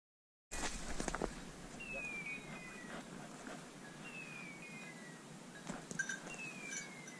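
Beeper collar on a hunting setter sounding its point signal: a short falling whistle tone, repeated at even intervals about every two seconds, three times, the sign that the dog is on point. Twigs and brush crackle underfoot in between.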